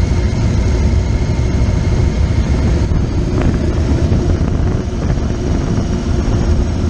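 Police motorcycle engine running steadily while riding, with other police motorcycles close by, and wind buffeting a bike-mounted microphone.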